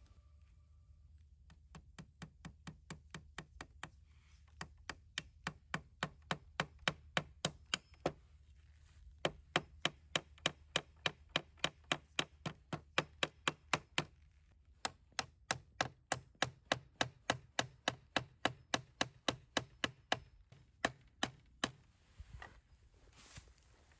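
Hatchet poll hammering nails into willow poles: runs of sharp, even strikes, about two to three a second, with short pauses between runs.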